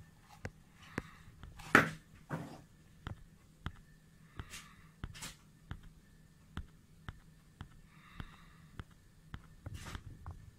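Handling noise from a telescope zoom eyepiece turned in the hand: scattered small clicks and rubs, with one louder knock about two seconds in.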